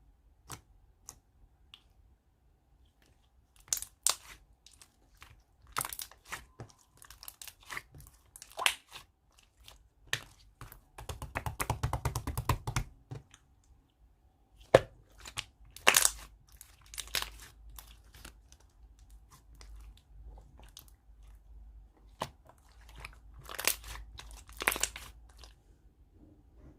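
Close-up chewing and crunching of food, with scattered sharp clicks and taps and a dense run of rapid crackling a little before the middle.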